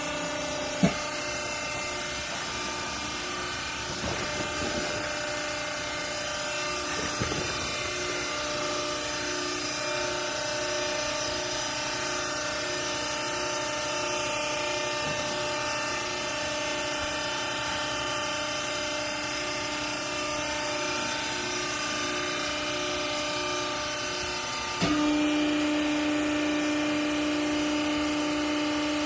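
Hydraulic baler's motor and pump running with a steady hum, one sharp knock just under a second in. About 25 seconds in the hum steps up suddenly, louder, with a stronger low tone.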